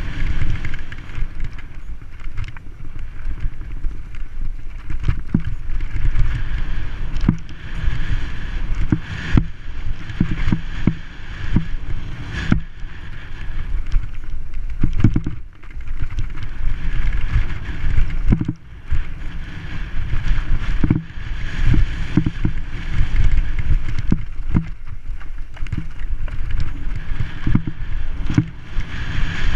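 Wind buffeting a helmet-mounted camera's microphone as a mountain bike rides fast down a dirt singletrack, with frequent sharp rattles and knocks as the bike jolts over bumps.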